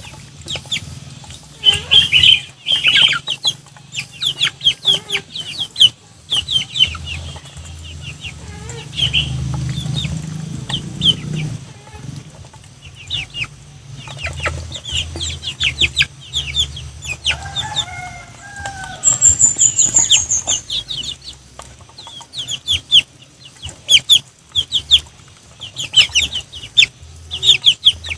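Muscovy duck and young chickens feeding from the ground: rapid, irregular sharp taps and clicks of beaks pecking and dabbling at food, with a soft cluck about eighteen seconds in and a short run of high bird chirps just after.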